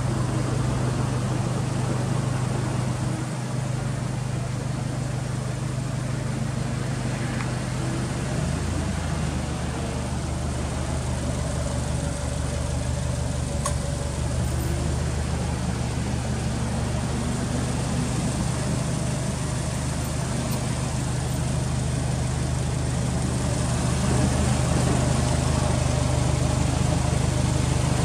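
Subaru Impreza WRX STI (GVB) 2.0-litre turbocharged flat-four idling steadily through a BLITZ aftermarket muffler, a low even hum that grows a little louder near the end.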